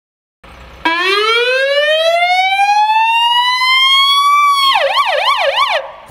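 Fire engine siren starting up: one long rising wail, then switching to a fast warbling yelp of about four cycles a second before cutting off.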